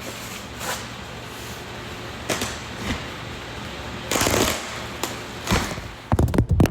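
Rustling and handling of packaging while a box is unpacked, then a quick clatter of sharp knocks near the end as the phone filming falls over.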